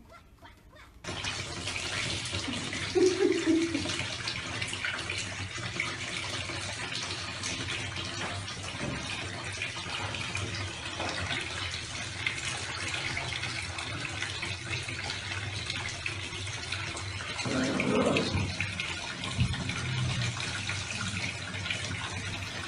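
Water from a tap running steadily into a bathtub, starting about a second in. A short pitched sound comes about three seconds in and a louder one near eighteen seconds.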